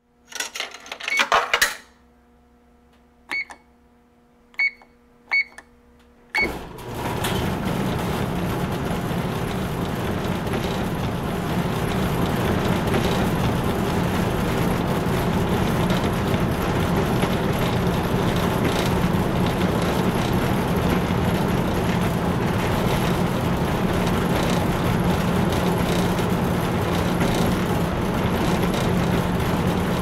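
Laundromat washing machine or dryer being started: a few loud clanks in the first two seconds, four short electronic beeps from its buttons, then about six seconds in the machine starts and runs with a steady whirring hum.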